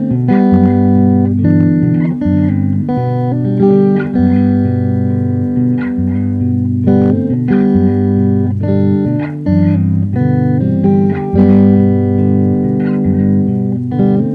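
Instrumental background music: plucked guitar over a bass line, playing without a break.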